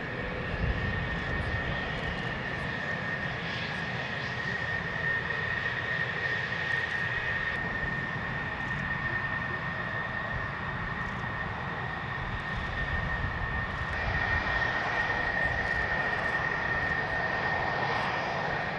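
Jet engine of a taxiing F-16C Fighting Falcon, a General Electric F110, running at taxi power: a steady high whine over a low rumble. It grows louder about three-quarters of the way through.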